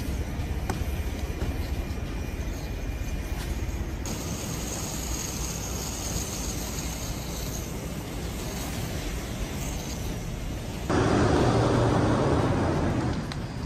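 Steady rumbling roar of fire at burning homes, with a propane tank venting a jet of flame. The sound changes character about four seconds in and grows clearly louder for the last few seconds.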